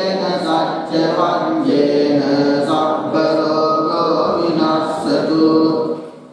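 A Buddhist monk chanting Pali verses into a microphone, one long melodic phrase of held and gliding notes that fades out just before the end.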